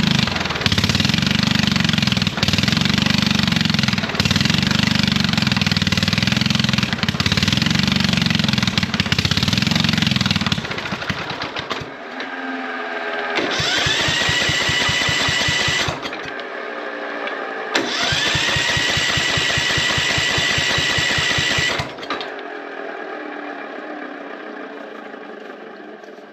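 Husqvarna CT151 ride-on lawn mower engine being started on ether: it runs steadily for about ten seconds and stops, then twice bursts into fast running with a rising, then steady whine before dying away near the end.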